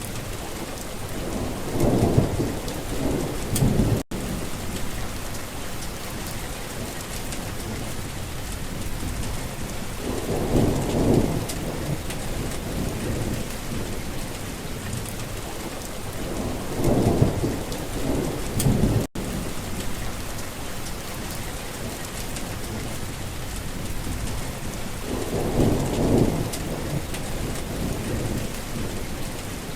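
Steady heavy rain with thunder rumbling four times, each rumble lasting two or three seconds. The sound cuts out for an instant twice.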